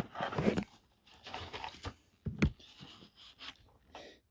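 Cardboard shipping box and packing being handled and opened: irregular rustling and scraping, with a sharp knock about two and a half seconds in.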